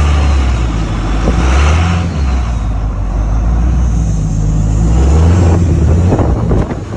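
Pickup truck engine running hard under load, its pitch falling and then rising again, as the truck struggles to gain speed in deep snow.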